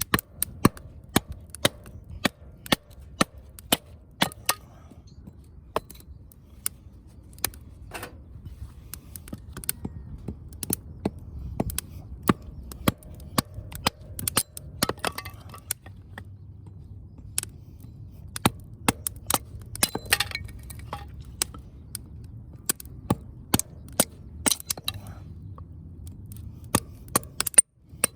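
Firewood burning and crackling, with sharp irregular pops coming anywhere from singly to several a second.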